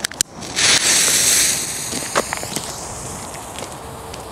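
A jet lighter clicks, then the firecracker's fuse catches about half a second in and hisses loudly for about a second, the hiss fading away over the next couple of seconds.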